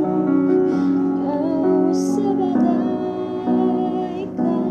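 Music: a slow ballad, a woman singing a wavering melody with vibrato over sustained keyboard chords that change every second or so.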